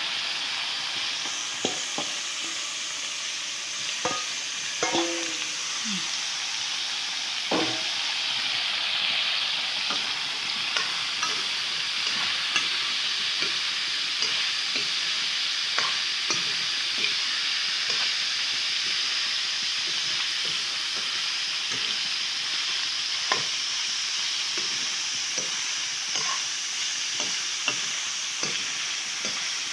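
Pork pieces sizzling in hot oil in a wok, stirred with a metal ladle that scrapes and clinks against the pan over and over. The sizzle grows fuller about a second and a half in.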